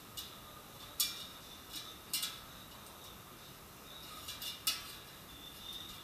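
Metal kitchen tongs clinking against an air fryer's basket and a plate while food is lifted out, about seven sharp, ringing clinks with the loudest about a second in and another near the end.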